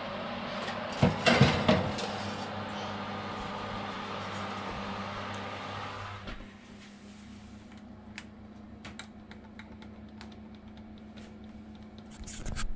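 A metal baking tray lined with foil slides onto an oven rack, with a cluster of clattering knocks about a second in, over the steady whir of an open fan oven. About six seconds in the oven door shuts and the whir drops away, and light clicks follow as the timer buttons on the oven panel are pressed.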